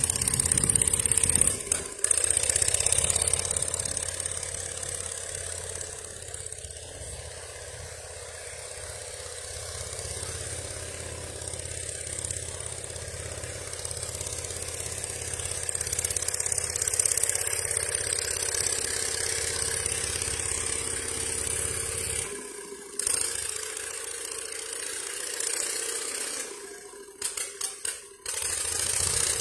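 An engine idling steadily with a low hum. The lowest part of the hum drops away about two-thirds of the way through, and a few sharp knocks come near the end.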